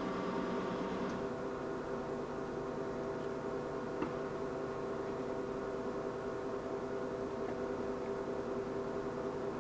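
Poreba TPK90/5M heavy engine lathe running with a steady whine of several constant tones from its gearing and motors, its carriage driven on rapid traverse. A faint click about four seconds in.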